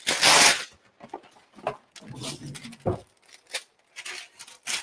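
Greaseproof baking paper crinkling and rustling as a sheet is pulled out and handled: a loud rustle at the start, then a string of short crackles.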